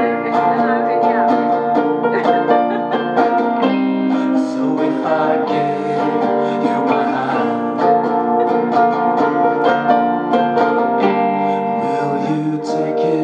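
Music: an instrumental passage of a song, carried by plucked string instruments.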